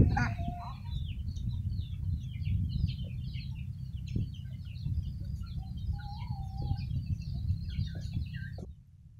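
Farmyard poultry calling: a loud call at the start, then a steady run of many short, high chirps and clucks with one longer, lower call past the middle, over a low rumble. The sound cuts off suddenly near the end.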